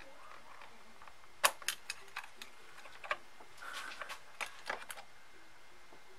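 Irregular sharp clicks and light knocks of a Samsung HW-N550 soundbar's main circuit board and plastic housing as the board is worked loose and lifted out by hand: about a dozen clicks from about a second in to about five seconds in, the loudest the first.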